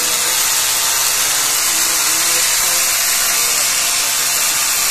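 Electric drill boring a hole up into the ceiling, running steadily at full speed under load.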